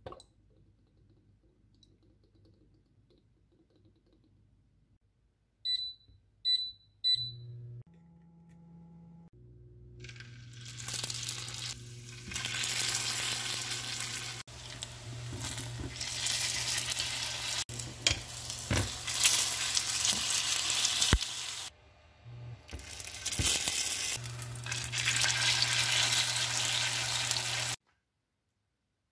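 Three short high beeps, as from induction cooktop touch controls, then skewered Korean rice cakes sizzling steadily as they fry in oil in a small pan. The sizzle briefly drops out once and cuts off suddenly near the end.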